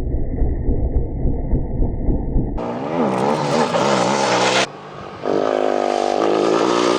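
Motor vehicle engine sounds, most likely rally motorcycles: a muffled low rumble, then after a sudden cut about two and a half seconds in, an engine revving up and down. After a short drop near five seconds, a steady engine note holds to the end.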